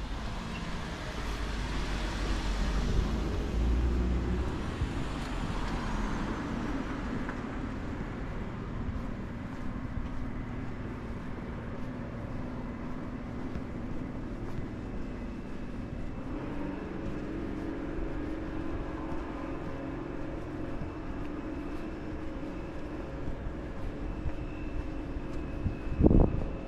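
Street traffic: a car passes close by in the first few seconds, then a steady engine hum holds, with a loud thump near the end.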